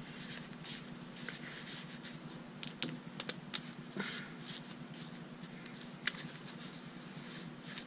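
Pens being slid into the fabric pen loops of a notebook pen holder by gloved hands: faint rustling, a quick cluster of small clicks about three seconds in as pen barrels knock together, and one sharper click about six seconds in.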